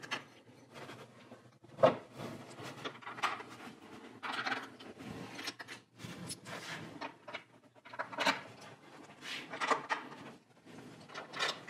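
A plastic car bumper cover being handled and shifted into place: scattered knocks, scrapes and rubbing of plastic parts, with one sharper knock about two seconds in.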